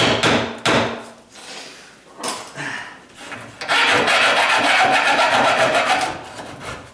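A bare hacksaw blade, worked by hand in the gap under a plywood countertop, sawing through the nails that hold it to the cabinet face frame. A few short scraping strokes come in the first second, then a steady rasping stretch of about two and a half seconds runs from around the middle.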